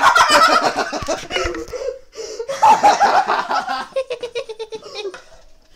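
People laughing hard in a small room, with a long run of quick, breathy laughs near the end.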